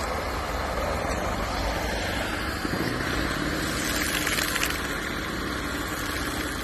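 Heavy diesel truck engine running steadily under load as one truck tows another through deep snow on a tow line. Its engine note grows clearer and steadier about two and a half seconds in.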